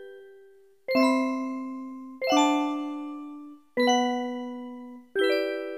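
Gentle background music of bell-like chimes: a slow melody of struck chords, one about every second and a half, each ringing out and fading before the next.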